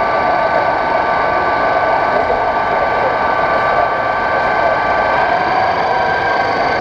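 Hydraulic tipping drive of a radio-controlled model Joskin tipping trailer whining steadily as the dump body tips up on its ram, over the noise of a busy exhibition hall. One strand of the whine drops out about five seconds in.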